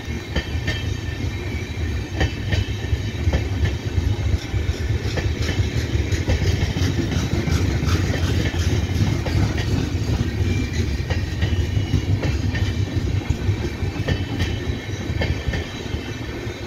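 Passenger coaches of an Indian Railways express train rolling past close by: a steady rumble of steel wheels on rail with frequent short clicks as the wheels cross rail joints, easing slightly near the end as the last coaches go by.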